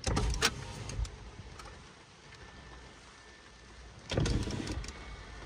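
Rain pattering on a car's roof and windscreen, heard from inside the car. Two short clusters of sharp knocks stand out, one right at the start and one about four seconds in.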